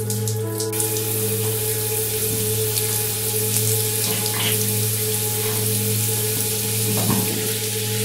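Water from an overhead rain shower head spraying steadily, with a held low musical drone underneath.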